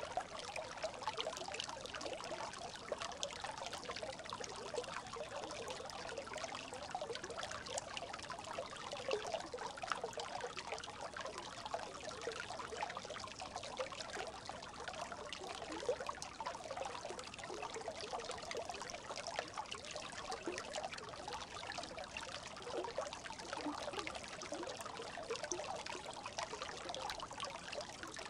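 A small brook babbling: a steady trickle of running water, full of small gurgles and splashes, going on without a break.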